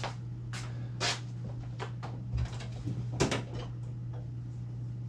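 Scattered clicks and knocks of tools and parts being handled on a workbench, with a short clatter about three seconds in, over a steady low hum.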